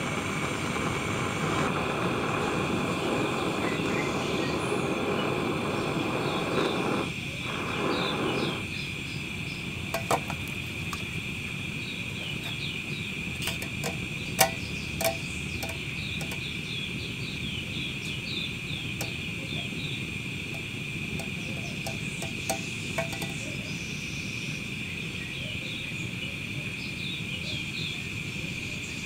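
Gas-cartridge blowtorch burning with a steady hiss, heavier while the rod sits in the flame until about nine seconds in. Then the red-hot steel rod is quenched in a tin can, giving scattered crackles and sizzling pops for several seconds.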